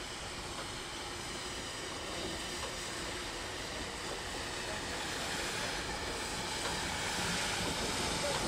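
Ex-South African Railways Garratt narrow-gauge steam locomotive moving slowly, a steady hiss of steam mixed with heavy rain and no distinct exhaust beats, growing louder as it draws near.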